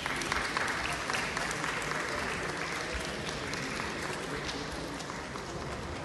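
Audience applauding, loudest in the first few seconds and slowly tapering off.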